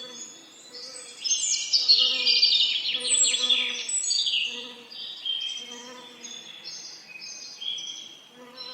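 Several songbirds singing at once, with overlapping chirps and trills that are loudest in a burst of rapid, falling notes from about a second to four seconds in. A faint low buzzing of bees comes and goes underneath.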